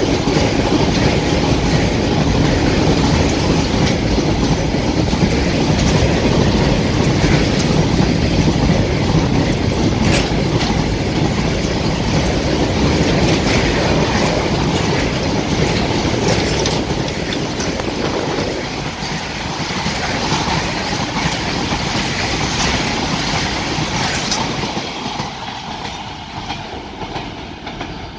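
BCNA covered freight wagons rushing past at speed: a steady rumble of steel wheels on rail with repeated clacks at the rail joints, fading away near the end as the last wagon passes and the train recedes.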